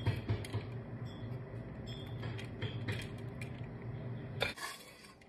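Metal spatula and spoon scraping and clinking against a skillet as fried garlic and chili topping is spooned out, with a sharper scrape about four and a half seconds in. Under it runs a steady low hum of construction machinery that stops shortly before the end.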